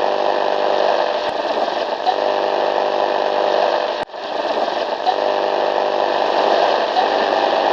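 Radio static: a steady hiss of white noise with a buzzing hum running under it, dropping out for an instant about four seconds in.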